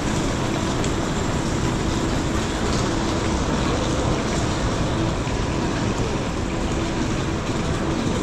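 Steady rumble and hiss of the KLIA Express electric train, with a faint hum and no distinct knocks or squeals.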